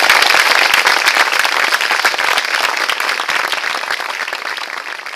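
Audience applauding: many hands clapping in a dense patter that gradually dies down in the second half.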